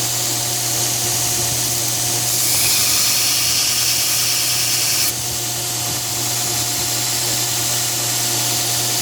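2x72 belt grinder running with a steady hum. About two seconds in a steel knife blade is pressed to the belt to grind the swedge, adding a harsh high-pitched grinding hiss that cuts off abruptly about three seconds later as the blade is lifted.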